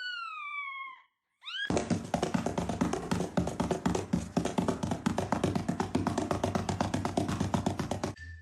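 A cat meows once, a long falling call. Then, after a short gap, comes a loud, fast run of taps and thumps lasting about six seconds, which stops suddenly.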